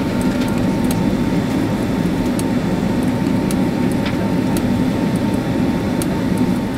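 Steady low rumble of a Boeing 767-300ER's jet engines at taxi power, heard inside the cabin from a window seat.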